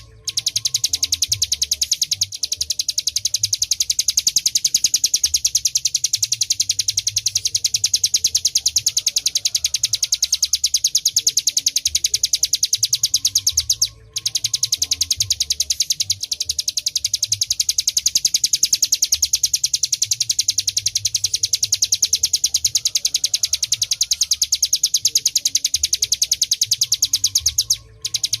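Ciblek gunung song: a long, high-pitched, very fast trill of evenly repeated notes, broken once by a brief gap about halfway through.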